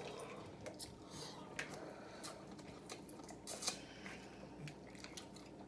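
Faint, scattered clicks and crackles of seafood shells being handled and worked open, with one slightly louder click a little past halfway.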